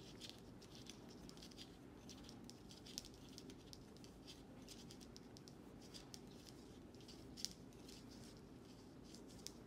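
Faint, irregular clicking and rustling of knitting needles and yarn as stitches are knit continental-style, with a few slightly sharper ticks.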